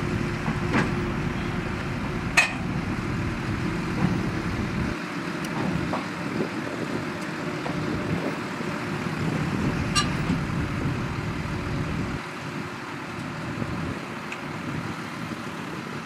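Bulldozer's diesel engine running steadily with a low rumble, with a sharp metallic clank a couple of seconds in and another about ten seconds in.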